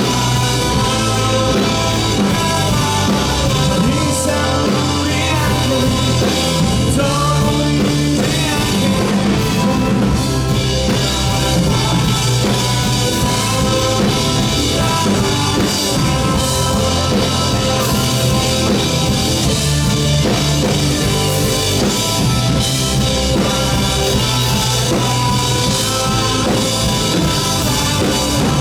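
Rock band playing live, with drum kit, guitars and bass, and singing in places.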